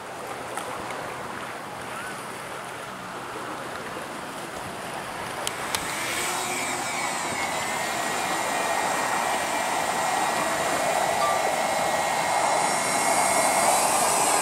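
A quadcopter drone's motors spin up about halfway through, after two clicks: a whine with several steady high tones over a rushing propeller sound that grows louder toward the end. Before that, a faint wind-and-water hiss.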